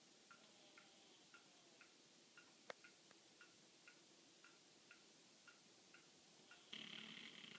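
A sleeping chihuahua giving one short, rasping snore near the end, over faint, even ticking about twice a second.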